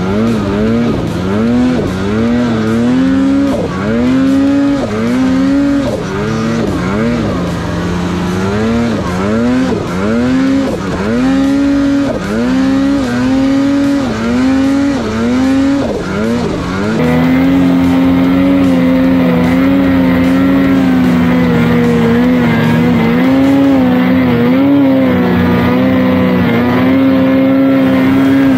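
Two-stroke mountain snowmobile engine running hard in deep powder. For the first half it revs in quick throttle pulses, the pitch jumping up and sagging about once a second; then it settles into a steady, high, held rev.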